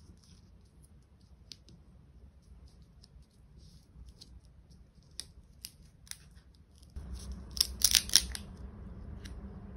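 Paper and card pieces handled on a desk: faint small taps and rustles as a ticket, a torn paper label and a round sticker are moved about. About eight seconds in comes a quick cluster of sharp, crisp clicks, the loudest sound here, over a steady low background hum that sets in just before.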